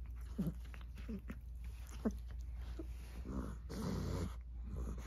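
A cat making several short, low cries in the first three seconds while convulsing after an epileptic seizure. About three seconds in there is a rustling sound, over a steady low hum.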